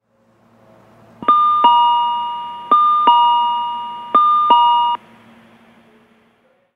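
Electronic two-tone chime sounding 'ding-dong' three times, each a higher note followed by a lower one, every note struck and then dying away.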